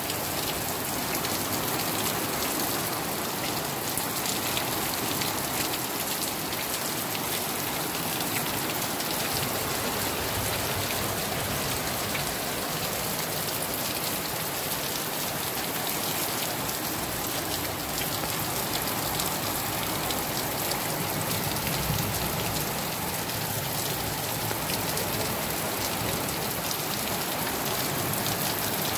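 Heavy rain falling steadily, a dense even hiss of drops splashing onto pavement, grass and standing water.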